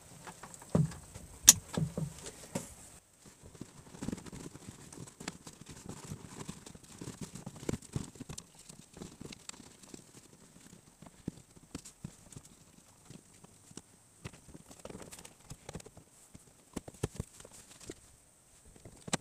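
Plastic door trim panel of a Volvo S80 being handled and fitted back onto the driver's door: scattered knocks, clicks and rubbing of plastic against the door, with one sharp click about one and a half seconds in.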